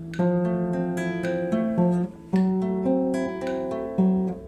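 Instrumental intro music played on guitar, with a short break about two seconds in.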